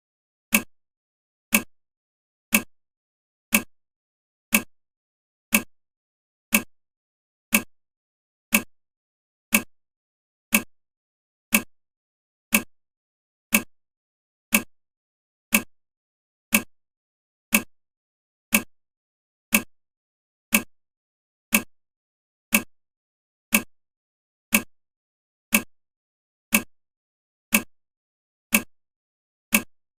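Clock-style ticking of a countdown timer, one sharp tick exactly every second at a perfectly steady pace.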